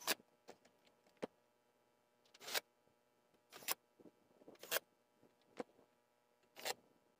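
A series of short, light clicks and brief scraping sounds, roughly one a second, with quiet in between.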